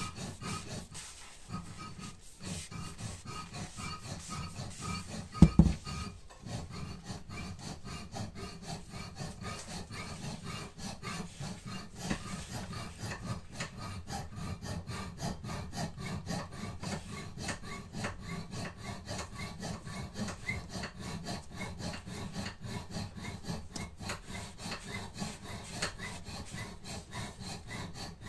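Quick, steady rubbing on wood, as gloved hands work a wooden walking-stick shaft, with a single knock about five and a half seconds in.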